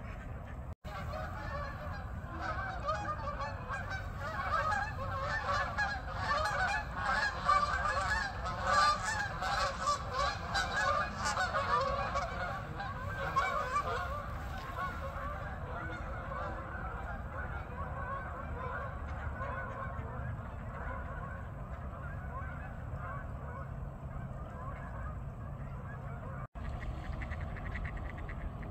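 A flock of geese honking as they fly past: a dense chorus of overlapping honks that builds to its loudest around the middle and fades away over the second half, over a steady low rumble.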